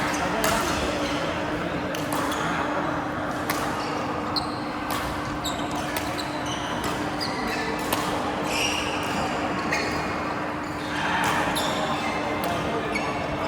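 Badminton rally in a sports hall: sharp, irregular racket hits on the shuttlecock and short, high squeaks of shoes on the court floor, over a steady low hum.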